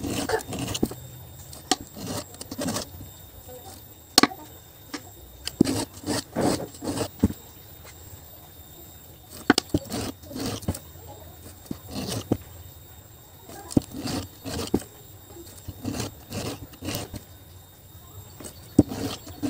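Round file scraping across the cutter teeth of a chainsaw chain in short, irregular strokes as the chain is hand-sharpened, with sharp metallic clicks between strokes.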